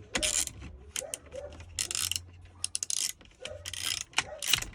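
Ratchet wrench with a 7mm socket clicking in short bursts, swung back and forth to drive a screw into a truck's cup holder trim.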